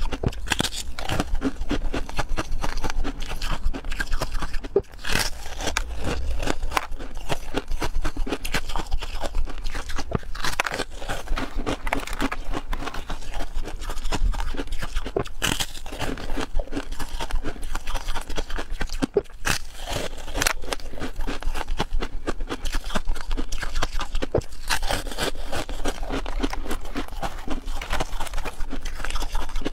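A person biting into and chewing hard frozen cubes from an ice cube tray, close to the microphone: a dense, irregular run of crisp cracks and crunches.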